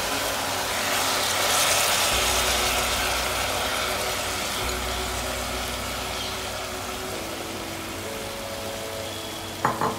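Frying pan of hot oil and spices sizzling as soaked, drained basmati rice goes in; the sizzle swells about two seconds in and slowly dies down. A few sharp knocks near the end.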